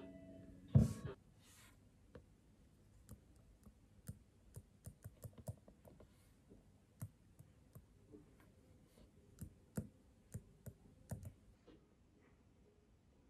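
Stylus tip tapping and clicking on a tablet's glass screen while writing: a run of light, irregular clicks, after one louder thump about a second in.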